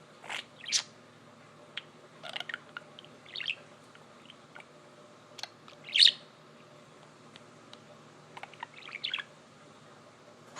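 Budgerigar chirping in short scattered calls, the loudest about six seconds in.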